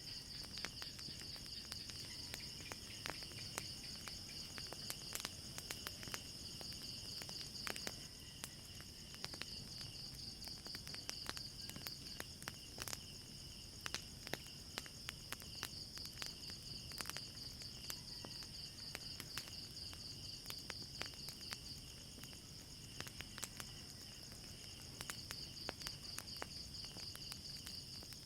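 Wood fire crackling with irregular sharp pops, over a steady high-pitched trilling of night insects that fades and swells.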